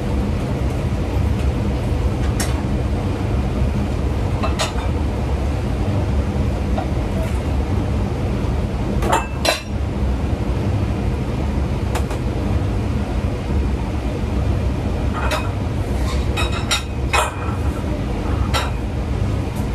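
Scattered clinks and knocks of a stainless steel pot and plastic sauce bottles being handled and set down, several close together near the end, over a steady low kitchen rumble.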